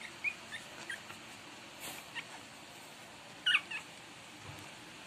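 Twenty-day-old Shih Tzu puppies giving short, high-pitched squeaking whimpers, a few in quick succession at the start and a louder pair about three and a half seconds in.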